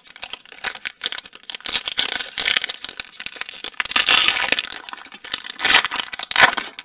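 Shiny foil wrapper of a trading card pack being torn open by hand, a dense run of crinkling and tearing crackles. It is loudest about four seconds in and again near the end.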